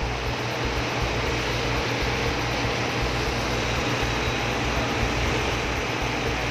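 Fire tender's engine and water pump running steadily, with the rush of hose jets spraying water.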